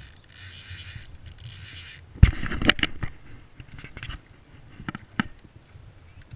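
Click-and-pawl Speyco Skagit salmon fly reel buzzing in two short runs as a hooked salmon pulls line off it. Then a loud thump a little after two seconds in, followed by scattered knocks and clicks.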